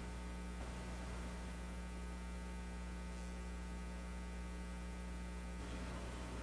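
Steady electrical mains hum with a stack of even overtones, unchanging throughout.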